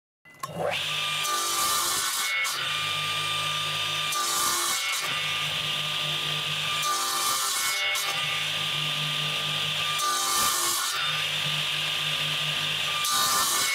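Electric mitre saw starting up and running, its blade set to part depth and taking a series of shallow cuts across a wooden board every two to three seconds to nibble out a notch.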